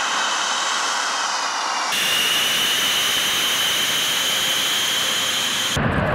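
Sukhoi fighter jets' turbofan engines running: a high turbine whine over a hiss of jet noise, changing abruptly twice across edited shots. About six seconds in it turns to the deeper rumble of a fighter taking off.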